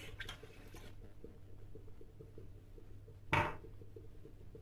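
Milk poured from a glass into a stainless steel pot of rolled oats, faint, over a low steady hum; about three seconds in comes a single short thud, the loudest sound here.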